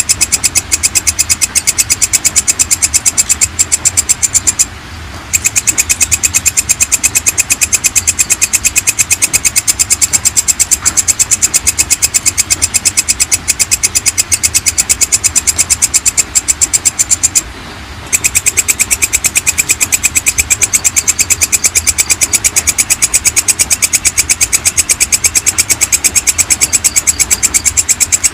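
Walang kecek (belalang kecek), a katydid, calling in a fast, unbroken train of high, buzzy clicking pulses that stops briefly twice, about five seconds in and again after about seventeen seconds.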